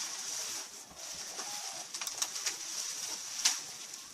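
Packing material rustling as glass lamp shades are handled and unwrapped, with a few light clicks and taps about two seconds in and a sharper click about three and a half seconds in.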